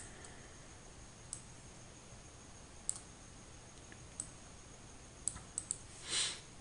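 Computer mouse clicks, sharp and scattered, about seven over several seconds, with a short burst of noise near the end.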